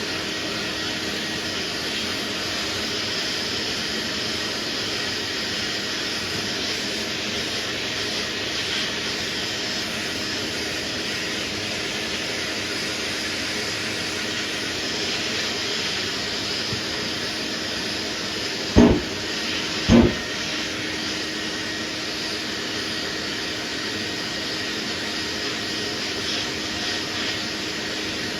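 Steady scratchy hiss of a sanding block worked by hand over primer dusted with guide coat, over a low steady hum. Two loud knocks about a second apart come roughly two-thirds of the way through.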